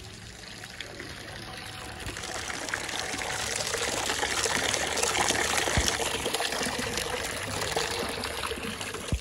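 A jet of water from a small battery-powered pump splashing into a clay bowl of chicken livers being washed, growing louder over the first few seconds as the stream strengthens and the bowl fills.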